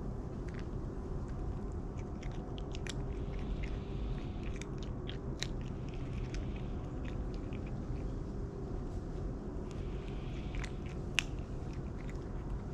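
Stray cats crunching dry kibble: a scatter of small sharp crunches, one louder about eleven seconds in, over a steady low background hum.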